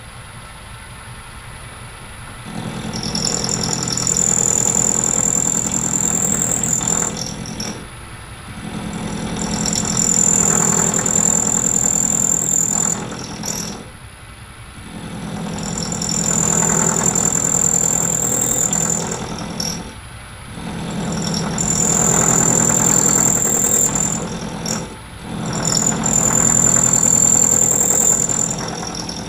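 Metal lathe turning down the locating square of a 10 mm bolt. The spindle runs steadily, and from about two and a half seconds in there are five bouts of cutting a few seconds each, every one with a high whine, with short pauses between them.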